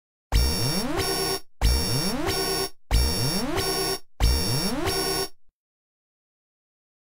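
Nokia 5310 XpressMusic stock alert tone: a short buzzy electronic phrase with a rising sweep, played four times in a row about 1.3 s apart, then stopping.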